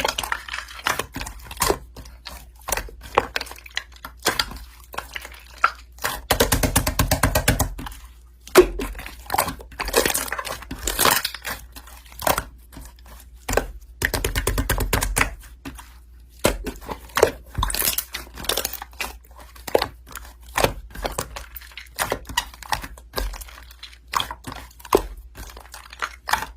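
Slime being squished and stretched by hand, making irregular sticky clicks and crackles, with a quick run of rapid pops about six seconds in.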